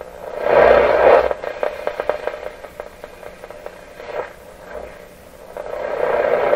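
Canadian Westinghouse 981 tube radio's speaker hissing with static as it is tuned across the AM broadcast band between stations. A loud surge of hiss comes about half a second in, then a run of crackles, and the hiss swells again near the end. Reception is poor on the long-wire antenna.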